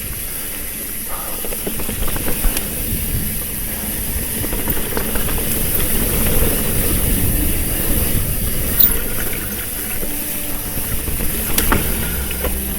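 Trek Fuel EX full-suspension mountain bike ridden on a dirt trail: a steady rush of wind and tyre noise on the microphone, with scattered rattles and sharp clicks from the bike over rough ground.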